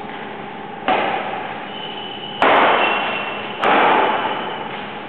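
Badminton rackets striking the shuttlecock during a rally: three sharp hits about a second and a half apart, the first one lighter, each followed by an echo that dies away over about a second in a hard-walled hall.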